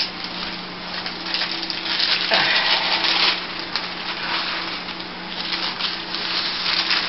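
Sheet of wax or parchment paper crinkling and rustling as it is peeled off soft bubble-bar dough and moved aside, in uneven bursts, with a steady low hum behind.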